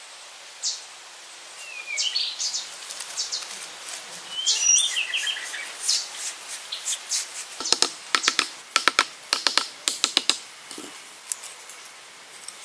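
A quick run of a dozen or so sharp taps over about three seconds, past the middle: a hand-held stone knocking bamboo pegs into a small bamboo frame. Birds chirp earlier on.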